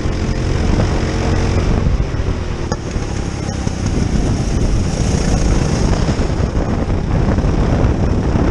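Go-kart engine running at racing speed, heard from the driver's seat.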